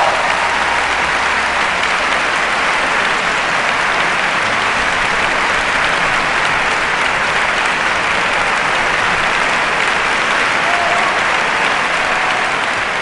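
Large audience applauding, a dense and steady sound of many hands clapping at once.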